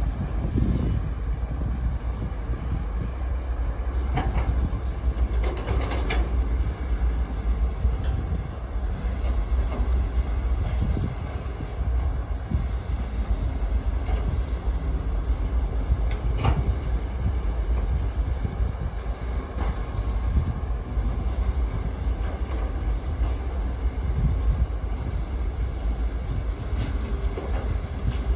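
Heavy construction machinery running with a steady low engine rumble, broken by a few short metallic clanks.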